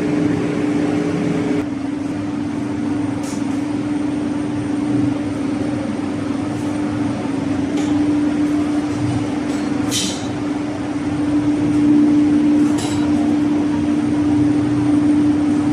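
Metal lathe running steadily while facing a flange on automatic feed: a steady machine hum with a few short sharp ticks.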